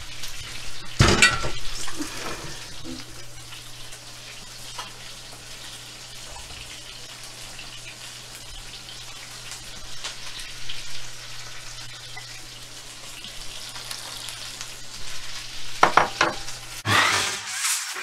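Steady sizzling hiss of food cooking on a gas stove, over a steady low hum. Cookware clatters about a second in and again near the end.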